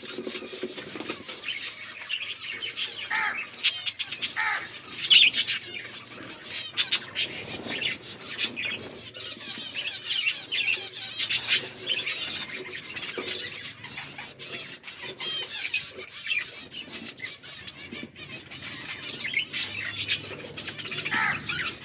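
Several budgies chattering and warbling continuously, a busy overlapping stream of chirps and squeaky twitters.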